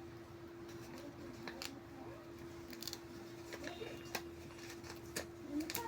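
Faint scattered clicks and crackles of a vinyl sticker being peeled from its backing paper, a few sharper ones near the end, over a steady faint hum.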